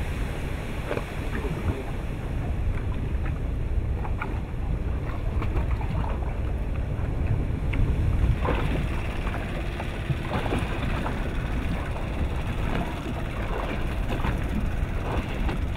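Lava flow entering the sea: wind buffets the microphone over a steady low rumble, with scattered cracks and pops from lava and hot rock shattering in the seawater, bunched together about halfway through.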